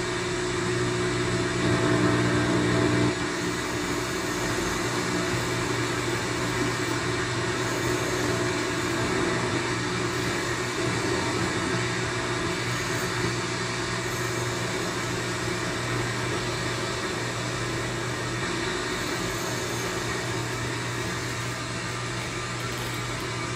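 Homemade one-transistor regenerative radio receiver putting out a steady hiss of static as its tuning dial is turned slowly. A low hum is stronger for the first three seconds or so, then drops back.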